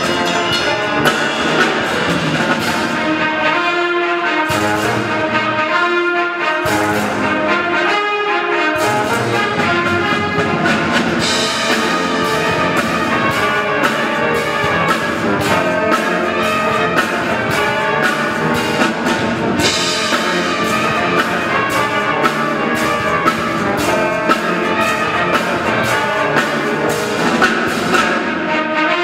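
Military brass band playing, with trumpets, trombones and other brass over a steady drum beat.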